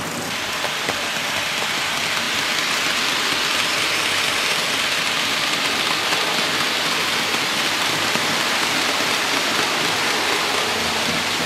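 Model railway freight train rolling past on metal track: a steady rushing hiss of many small wheels on the rails, building over the first couple of seconds and then holding.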